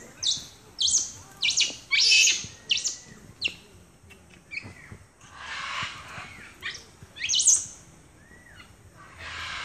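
Capuchin monkeys giving a rapid run of loud, short, high-pitched squeaks and chirps, then a longer hoarse squeal, and a few more sharp chirps near the end.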